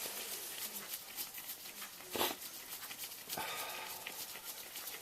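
Small clicks and rustling of plastic and metal RC buggy suspension parts being handled and fitted by hand, with a brief louder knock about two seconds in and a faint high tone in the last second and a half.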